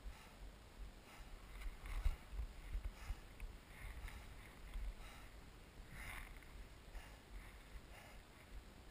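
Faint hiss and scrape of sliding down groomed snow, with a few soft swishes, the strongest about six seconds in. An uneven low wind rumble on the microphone runs underneath.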